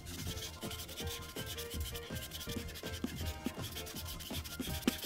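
Broad chisel tip of a Prismacolor marker rubbing across paper in quick back-and-forth strokes as an area is filled in with colour.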